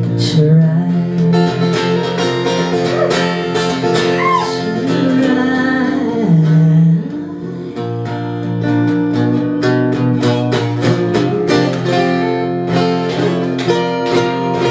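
Acoustic guitar strummed at the close of a live folk ballad, with a voice briefly singing over it in the first half.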